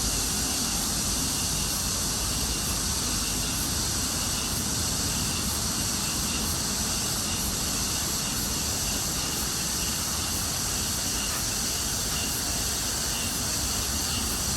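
Steady outdoor background noise: an even hiss with low rumble, unchanging throughout, with no distinct events.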